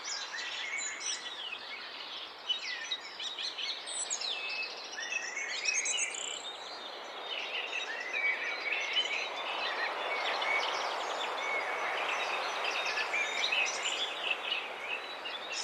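Several birds chirping and singing together in a dawn chorus: many short high chirps, trills and whistles overlapping, over a steady background hiss that grows louder in the second half.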